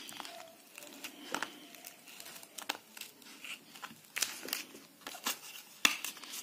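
A thin plastic pry card worked along the glued edge of a Redmi Note 7's back glass: faint crinkling and scattered small clicks as the heat-softened adhesive separates.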